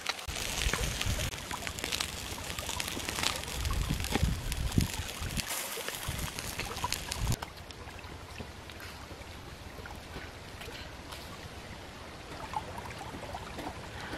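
Outdoor ambience of a small stream trickling over rocks, with scattered light clicks and a few faint bird calls; it drops to a quieter level about halfway through.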